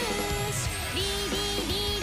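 Upbeat background jingle music: a melody of held, sliding notes over a steady beat.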